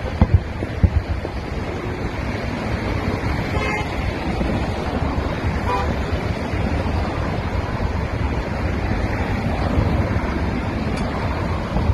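Steady rush of road traffic and wind on the microphone. There are dull booms in the first second, typical of distant fireworks bursts, and a couple of short car-horn toots midway.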